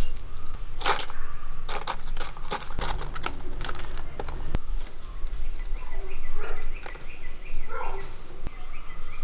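Metal spatula scraping and clinking against a heavy iron kadai of dry-fried beef, a quick run of scrapes and knocks through the first half. In the second half, softer scrapes come with short animal calls in the background.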